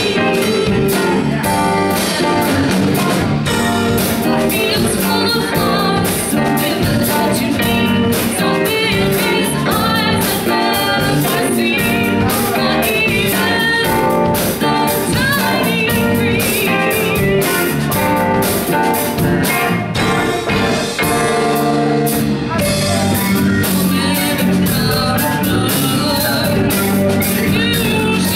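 Live band playing: a woman singing over electric keyboard, electric guitar, bass guitar and a drum kit.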